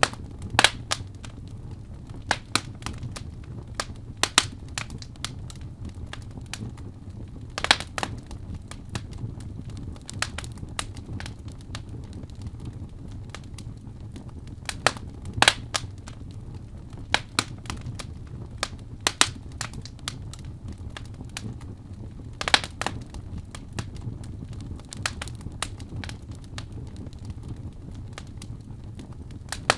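Fire burning in a fireplace, crackling with sharp, irregular pops every second or so over a low, steady rumble.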